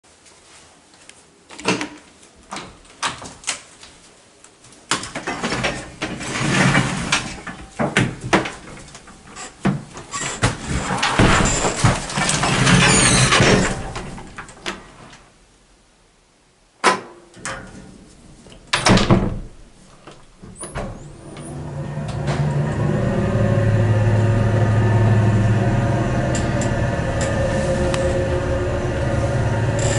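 National Wheel-O-Vator residential elevator: a string of clicks, knocks and sliding noises as its door and gate are worked. About twenty seconds in, the lift's motor starts and runs with a steady low hum as the car travels.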